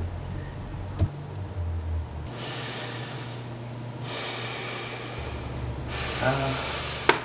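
A person breathing heavily through the nose: three long, hissy breaths, each lasting one to two seconds, over a steady low hum. A short click comes about a second in.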